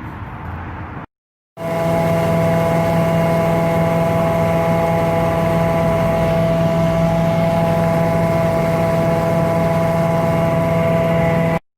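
An engine running at a steady, constant speed with a strong even hum. It starts abruptly after a short silent cut about a second and a half in and stops just as abruptly near the end.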